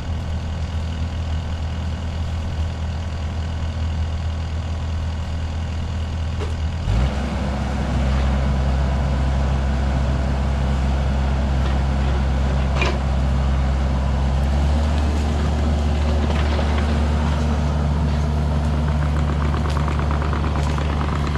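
A large engine running steadily at idle, then picking up revs about seven seconds in and running harder and louder.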